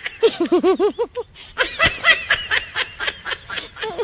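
Hearty, high-pitched laughter: a run of 'ha-ha-ha' bursts in the first second, then a longer stretch of quicker laughing.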